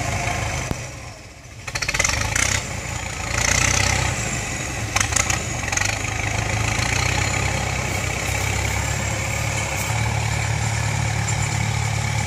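Kubota tractor's diesel engine running steadily while it pushes soil with a front dozer blade. The sound dips briefly about a second in and then comes back. A few sharp knocks follow around five seconds in.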